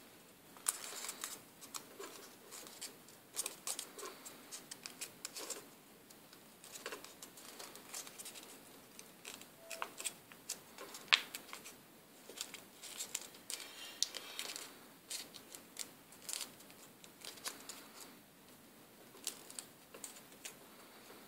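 Paper crinkling and crackling in irregular small clicks as fingers fold and press creases into a small origami paper leaf.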